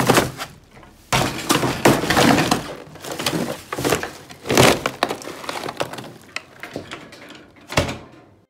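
Cardboard toy box and plastic garbage bag crunching and cracking as they are crammed down into a trash can. A single sharp knock near the end, as the bin's lid is shut.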